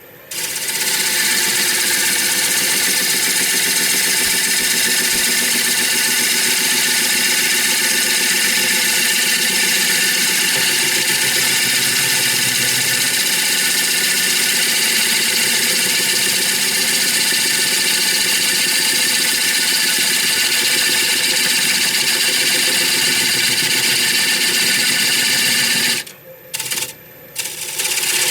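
Electric power tool running steadily at full speed for a long stretch, with a hiss and a whine. Near the end it stops and is switched on again in a few short bursts.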